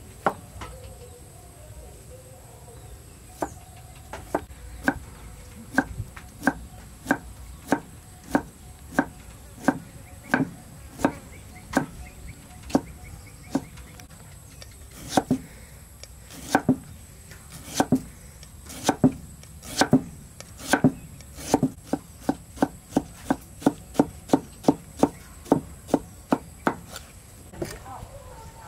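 Steel cleaver chopping through boiled bamboo shoot onto a thick round wooden chopping block. Separate sharp knocks, at first one or two a second, quicken to a fast run near the end.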